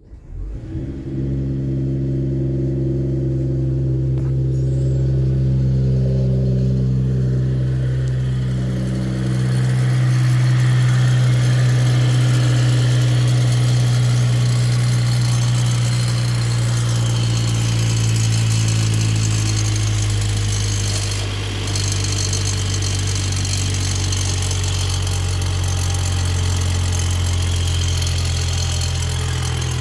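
Mercedes-AMG E53's M256 3.0-litre turbocharged inline-six cold-starting right at the outset, then idling steadily with a rattle from the turbo side like a cheap lawnmower. The owner puts the rattle down to the wastegate and its actuator rod.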